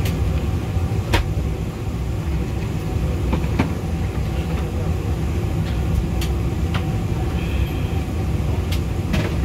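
Steady low hum of an Embraer E190-E2's cabin air system while the airliner is parked at the gate, with a few sharp clicks and crinkles from a plastic bottle and other items being handled.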